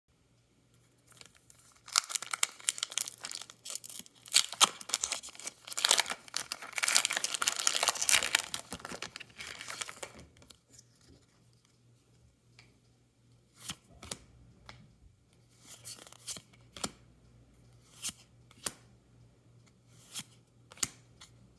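Foil Pokémon TCG booster pack wrapper crinkling and being torn open for about eight seconds. Then come short, separate card flicks roughly a second apart as the cards are gone through one by one.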